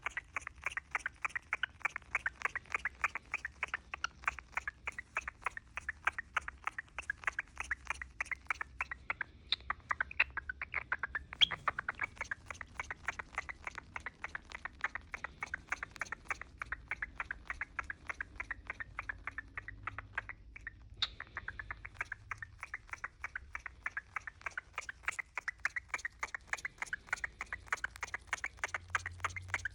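A cockatiel chirping in a fast, even run of short chirps, several a second, pausing briefly about a third of the way in and again about two-thirds of the way in.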